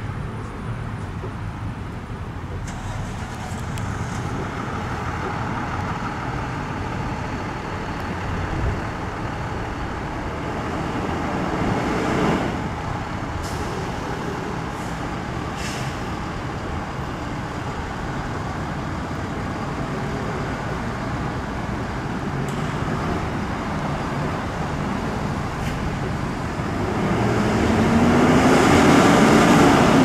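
Diesel engine of a Freightliner M2 box ambulance running with a steady rumble, getting noticeably louder in the last few seconds as the truck pulls out of its station bay.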